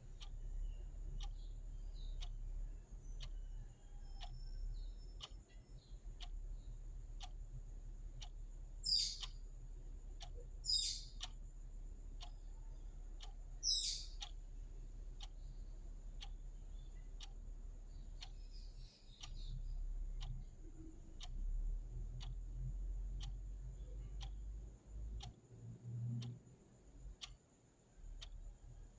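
Mechanical clock ticking steadily in an even rhythm. Three short high-pitched chirps break in around a third of the way through and stand out above the ticking.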